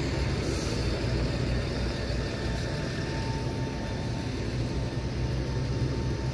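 Steady low rumble of bus engines idling in a bus garage, with no single sound standing out.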